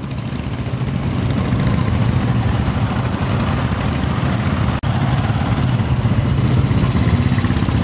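Several Royal Enfield Bullet motorcycles' single-cylinder engines running as the bikes ride past, a dense low rumble that grows louder over the first couple of seconds.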